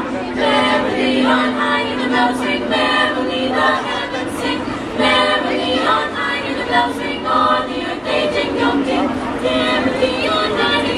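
Girls' school choir singing, with a low note held steady beneath the other voices for the first few seconds and again near the end.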